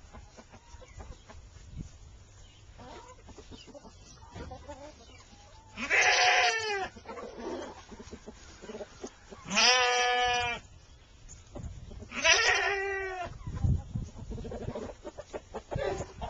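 A farm animal gives three loud, pitched calls, each about a second long and a few seconds apart. Between them is the quieter pecking and scratching of a flock of chickens feeding.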